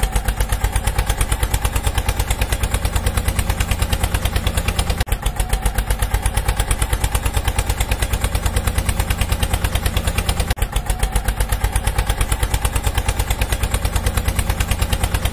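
Tractor engine chugging steadily at about six even thumps a second, with two brief dips in the beat.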